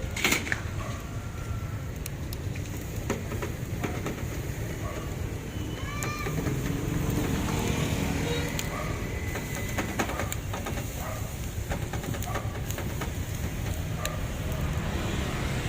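Outdoor street background: a steady low rumble with scattered clicks and clatter, and faint voices or chirps about halfway through.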